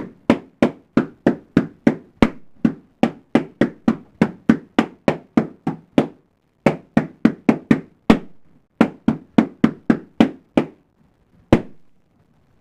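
Latex balloons being popped one after another in quick succession, about three sharp pops a second, with a short break about six seconds in and a single last pop near the end.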